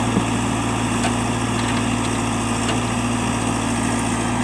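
JCB backhoe loader's diesel engine running steadily: a constant low hum with a few faint ticks over it.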